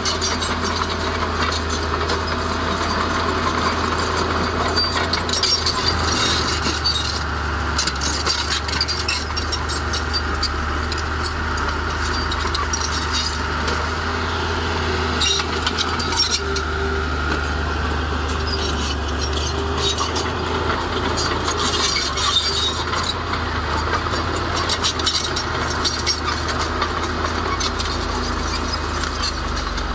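Bulldozer's diesel engine running steadily at work, with frequent metallic clinks and knocks over it.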